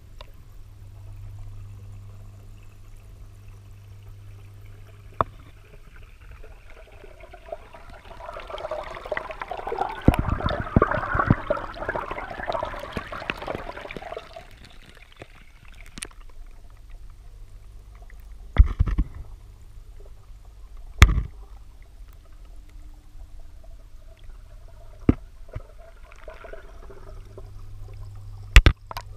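Air bubbles streaming past an underwater microphone in a garden pond: a rush of bubbling water builds about a quarter of the way in and fades by about halfway. Several sharp knocks come through the rest, some as loud as the bubbling, over a low steady hum near the start and end.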